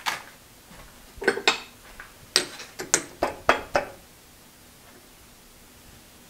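Metal clinks and clicks from a chuck key being fitted and turned in a lathe chuck to loosen a freshly turned metal disc. There are about eight sharp clinks over the first four seconds.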